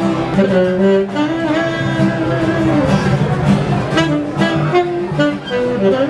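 A live band plays a Christmas tune, guitar over held melodic notes.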